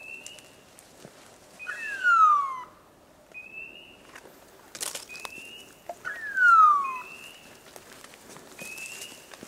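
Electronic beeper collars on hunting setters: short rising chirps repeat about every second and a half, and two louder, longer falling tones come about 2 and 6.5 seconds in. A sharp crack sounds near five seconds in.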